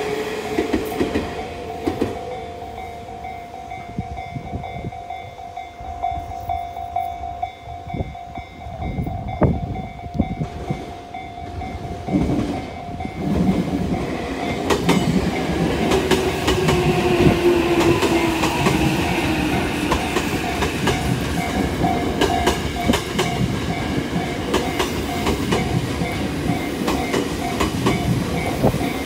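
Electric trains on a multi-track line. The sound of a departing train fades away in the first seconds. From about halfway, an electric commuter train comes up and runs past with dense clicking of wheels over the rail joints and a motor whine that falls in pitch.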